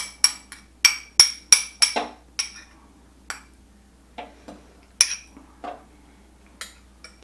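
Metal spoon clinking against a small bowl as thick hoisin sauce is scraped and tapped out of it: a quick run of sharp, ringing clinks for the first two and a half seconds or so, then a few scattered ones.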